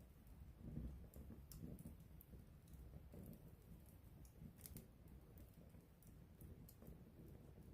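Wood campfire crackling faintly: scattered small pops and snaps over a low, soft rumble of flame.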